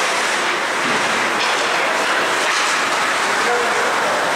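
Steady din of an ice hockey game in a rink: skates scraping and carving the ice and sticks on the puck, with a few faint shouts mixed in.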